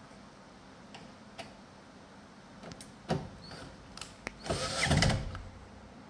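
Cordless drill driver running a screw in to fasten a replacement pressure sensor to the washing machine's frame. Its loudest run comes about four and a half seconds in and lasts under a second. Before it there are a few clicks and a shorter burst.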